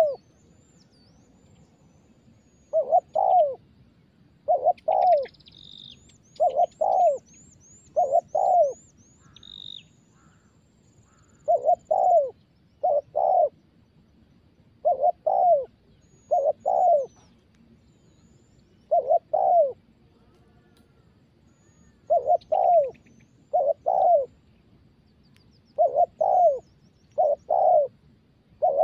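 Spotted dove cooing over and over: short phrases of two or three low notes, one every second or two, with longer pauses now and then. Faint high chirps and a trill from small birds come in between.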